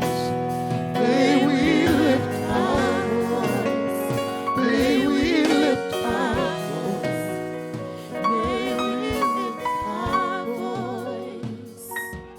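Gospel worship music: voices singing with vibrato over sustained keyboard chords. It thins out near the end to a few soft keyboard notes and grows gradually quieter.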